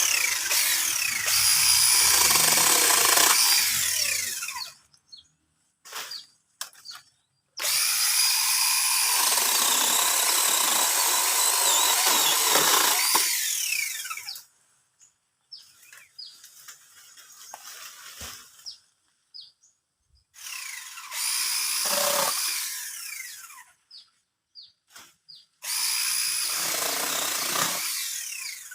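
Mini chainsaw cutting into wood in four runs of a few seconds each, the motor stopping between them and starting again.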